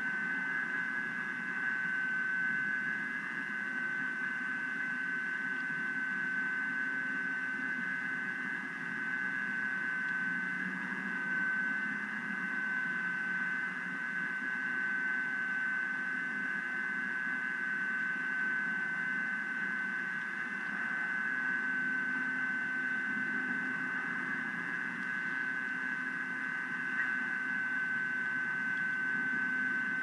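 Steady static-like hiss with a constant high-pitched whine running through it, the electronic noise of a live nest camera's microphone feed.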